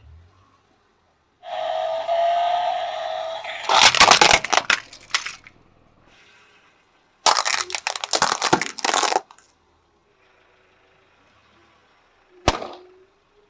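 Objects cracking and crunching as a car tyre rolls over and crushes them, in several separate bursts. A hiss with a slowly rising squeal leads into dense cracking about four seconds in, a longer run of crackling comes about seven seconds in, and there is one sharp snap near the end.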